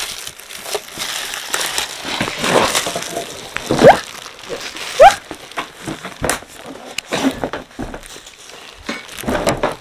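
Cardboard box and plastic wrapping rustling and crinkling as a boxed air fryer is pulled out of its packaging, with scattered knocks. Two short rising squeaks, about four and five seconds in, are the loudest sounds.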